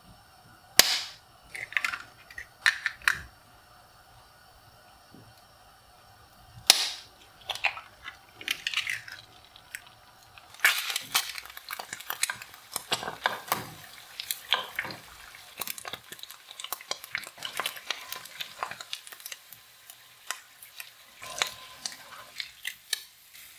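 Two eggs cracked open one after another, a sharp crack about six seconds apart, and dropped into hot olive oil in a nonstick frying pan. From about eleven seconds in, the frying eggs sizzle and spit with dense crackling while a spoon bastes them, thinning out near the end.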